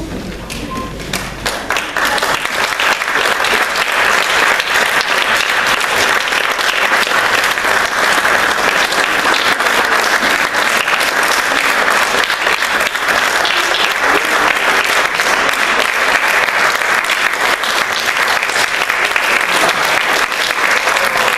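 Audience applauding, swelling to full clapping about a second and a half in and holding steady.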